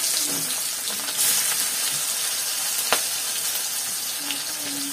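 Chopped onion sizzling steadily in hot oil in a kadai, with cumin seeds, dried red chillies and bay leaves, at the start of tempering. One sharp click about three seconds in.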